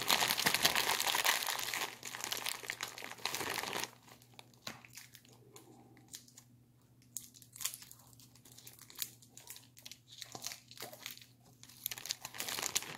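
Crinkling and crackling of plastic or paper packaging being handled, dense and fairly loud for the first four seconds, then fainter scattered crackles.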